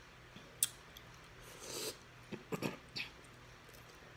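Scattered quiet breath and mouth sounds from a person close to the microphone: a sharp click about half a second in, a breathy swell a little later, and a few short puffs near the middle. The puffs come just before a fit of coughing, as if from catching her breath.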